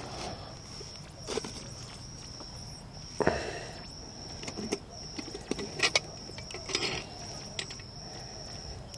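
Scattered light clicks, taps and rustles of hands working on an in-ground PAR well light fixture, handling its cap, lamp housing and wiring, over a steady high-pitched drone.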